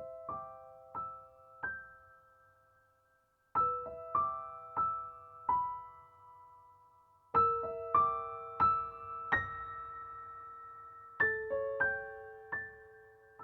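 Background music: a slow, soft piano melody, single notes struck in short phrases of a few notes each and left to ring out.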